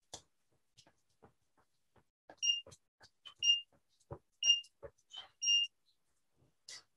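Digital interval timer beeping the last seconds of its countdown: four short high beeps a second apart, the last one a little longer, marking the end of the work interval. Between them come soft thumps of feet on the patio from high knees in place.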